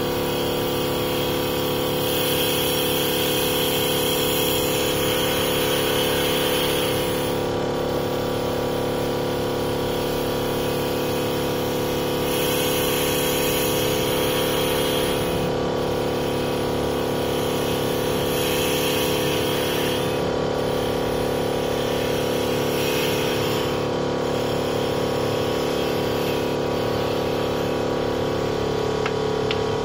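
Wisdom CNC small auto-feeding wood turning lathe running with a steady motor hum while its cutter turns a wooden ball-ended piece. A higher cutting hiss swells and fades several times as the tool takes off wood.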